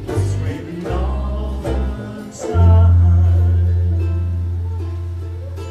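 A group of ukuleles strumming with voices singing over low bass notes, then one last chord about two and a half seconds in that rings out and slowly fades: the close of the song.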